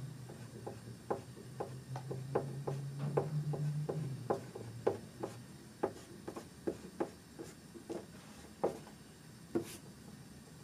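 Graphite pencil sketching on paper: a run of short strokes, roughly two a second, with one sharper tick near the end.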